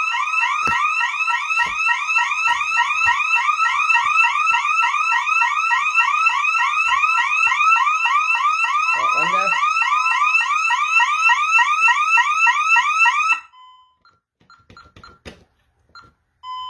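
Honeywell Vista 15P alarm system's siren sounding a burglary alarm after the front window zone is tripped in stay mode: a loud, rapidly repeating rising sweep that cuts off suddenly about 13 seconds in, followed by a few short keypad beeps and clicks.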